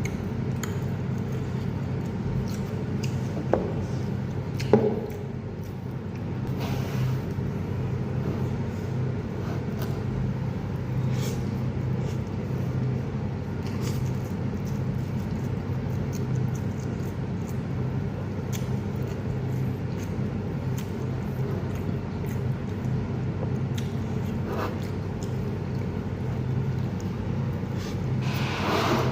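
Eating sounds: a few sharp clicks and knocks, the loudest about five seconds in, over a steady low hum.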